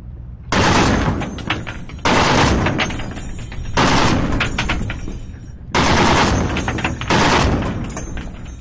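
Browning M2 .50 caliber machine gun firing five short bursts, about one every one and a half to two seconds, each starting sharply and trailing off before the next.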